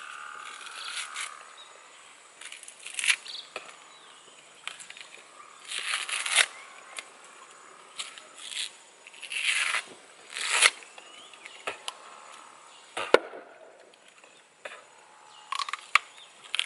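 Crunchy bites and chewing into a hand-held peeled fruit, in bursts every few seconds, with a few sharp clicks between them.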